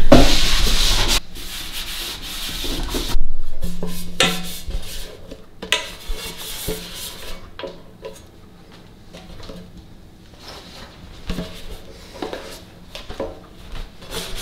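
A damp cloth rubbing and wiping over the plastic surfaces of a Ninja Dual Zone air fryer and its drawer. It is loudest in the first second, with scattered knocks and clicks as the parts are handled.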